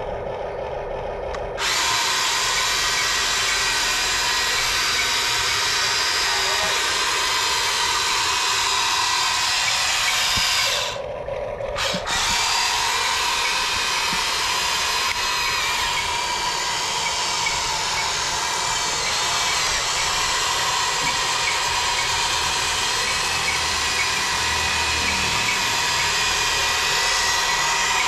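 Electric drive motors and gearboxes of a toy RC excavator whirring steadily as it runs on its tracks. The sound starts about two seconds in and breaks off for about a second near the middle.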